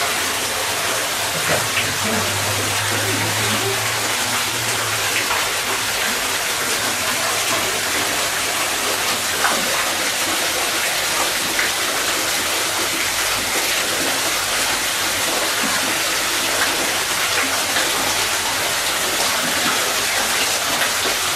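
Small artificial waterfall pouring steadily into a pond, heard from inside the rock grotto behind it as an unbroken rush of water.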